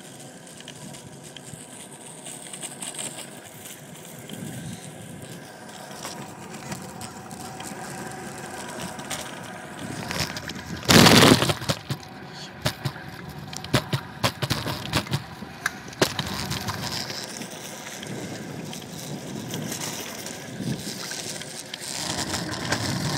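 Xootr kick scooter rolling over concrete pavement: a steady rolling rattle from the wheels and deck, with a run of sharp clicks and knocks as it crosses joints and cracks. A loud rushing burst of just under a second comes about eleven seconds in.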